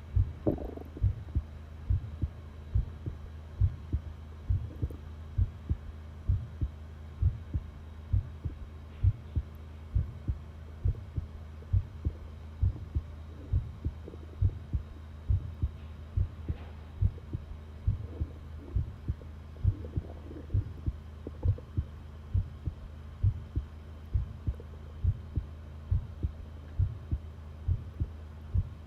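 Human heartbeat recorded close up: a steady, regular run of low thumps over a low hum. A brief rubbing noise comes right at the start.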